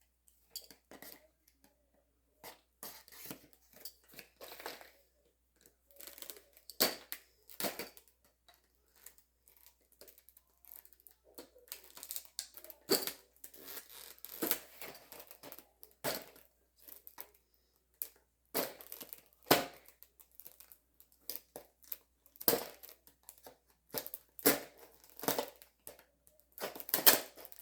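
Knife cutting and prying at a stubborn broadhead box, the packaging crackling, tearing and clicking in irregular bursts.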